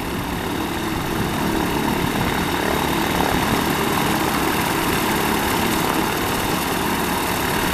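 Light-sport airplane's propeller engine running at low taxi power as the plane rolls slowly past: a steady drone that grows a little louder over the first few seconds.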